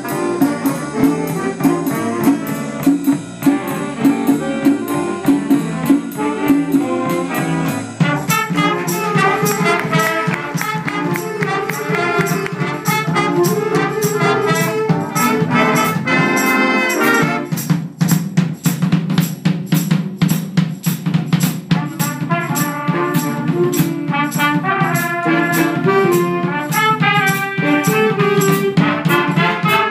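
A student jazz big band playing a swing tune: a saxophone section and trumpets over a drum kit. From about eight seconds in, the cymbals keep a steady, stronger beat under the horns.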